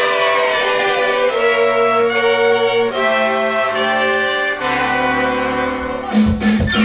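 Bowed strings, violin over cello, play held chords that change every second or so, with a deep bass line coming in partway through. Near the end a steady percussion beat starts under them.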